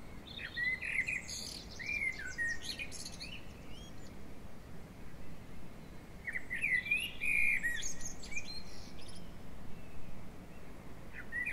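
Songbird singing in a dawn chorus recording: two bursts of quick whistled and trilled song phrases, each about three seconds long, separated by a short pause, with a third phrase starting near the end.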